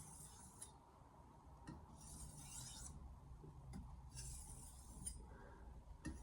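Steel knife blade, an 8-inch Mercer granton-edge chef's knife, being drawn across a whetstone in slow sharpening strokes: faint rasping swishes about a second long, one roughly every two seconds.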